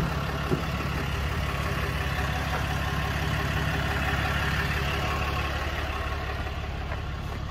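Ram 5500's 6.7-litre Cummins inline-six turbo-diesel idling steadily, with a click or two near the start as the driver's door is opened.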